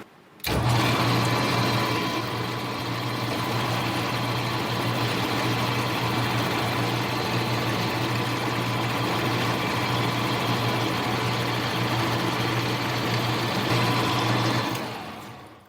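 Small metal lathe running steadily, a motor hum with a higher steady whine, while it takes a turning cut. It starts abruptly and fades out near the end.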